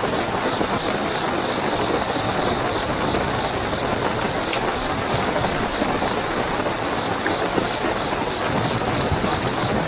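Steady heavy rainfall, a dense even hiss with the odd distinct drop, under a continuous high-pitched trill of night crickets.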